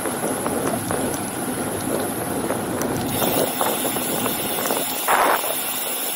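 Steady wind and riding noise from a moving bicycle, heard at a handlebar-mounted camera, with a short louder rush about five seconds in.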